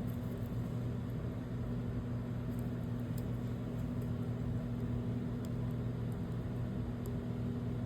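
Steady machine hum with a low, even drone, and a few faint small ticks over it.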